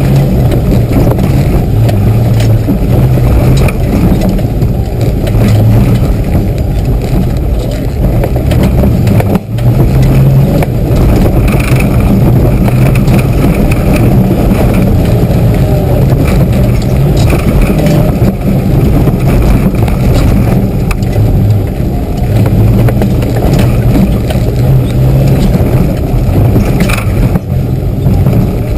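Mitsubishi 4x4's engine running under load over a rough, muddy track, heard loud from inside the cab, with constant knocks and clatter from the body and suspension. The engine note drops out briefly about a third of the way in, then picks up again.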